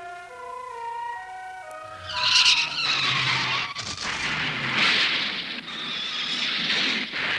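A simple music melody, then from about two seconds in a loud, harsh, hissing sound effect that rises and falls and cuts out briefly twice.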